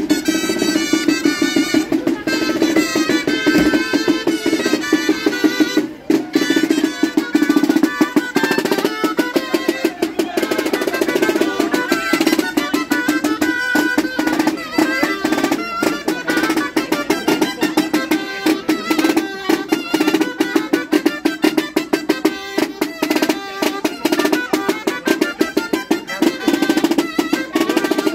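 Basque gaita (double-reed pipe) band playing a lively parade tune, with a snare drum keeping a quick, steady beat and rolls.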